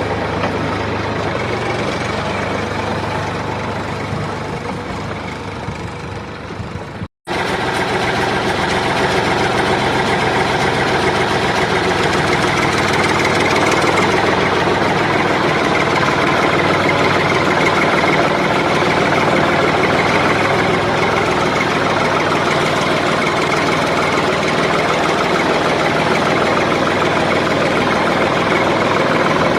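Small engine of a homemade mini tractor running steadily. About seven seconds in, the sound breaks off completely for a split second.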